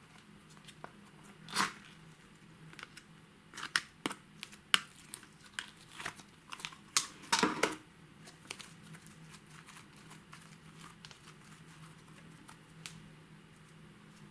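Slime being worked by hand: a run of sticky clicks, crackles and tearing sounds between about a second and a half and eight seconds in, then only faint small clicks.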